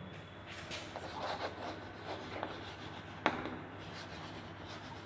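Chalk scratching on a chalkboard as a word is written, in short faint strokes, with one sharper tap of the chalk against the board about three seconds in.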